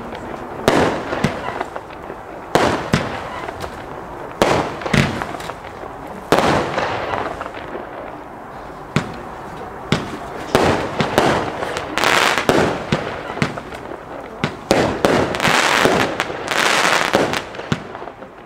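Lesli Chain Smoker firework battery firing shot after shot, about one every one to two seconds: each a sharp report, several trailed by a longer hiss as the stars burst. The bangs are light, with too little punch for the uploader.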